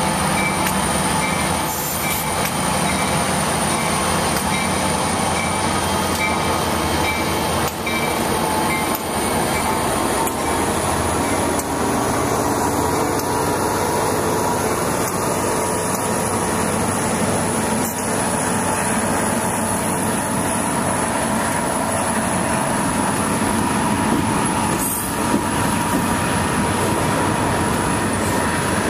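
Union Pacific freight train passing close by: diesel locomotives run past, then a long string of autorack cars rolls by with steady wheel-and-rail rumble and a thin, high, steady whine.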